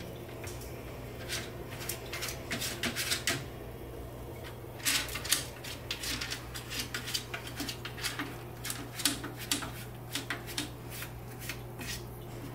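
Cat raking litter with its paw in a plastic LitterKwitter toilet-training tray, covering its droppings: short scratchy rasps in quick runs, a pause about three seconds in, then a longer run of scratches.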